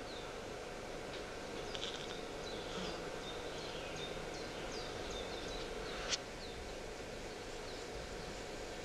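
Outdoor nature ambience played as a sound effect through the theatre's speakers: many short bird chirps over a steady background hiss. A single sharp click stands out about six seconds in.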